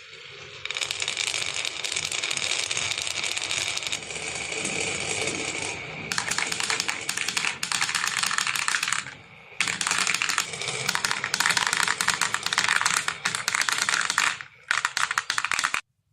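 Marbles rattling and clicking as many of them roll down a marble run's track, a dense continuous clatter that briefly thins out twice and stops just before the end.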